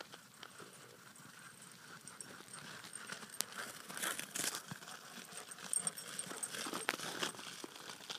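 Crusted snow crunching irregularly under footsteps and dog paws close to the microphone, loudest in two spells about four and six to seven seconds in.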